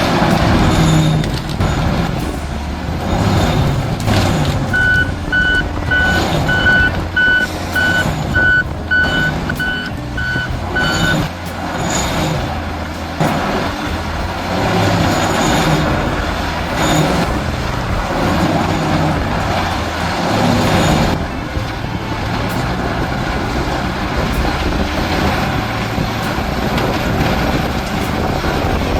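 Heavy machine's engine running steadily, with a backup alarm beeping about two times a second for some six seconds, starting about five seconds in.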